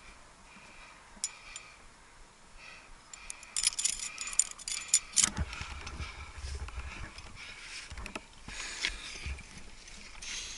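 Metal climbing gear, carabiners and protection racked on a harness, clinking and jangling as the climber moves up the crack, busiest about halfway through, with a few separate clicks later. A low rumble sits under the clinking from about halfway on.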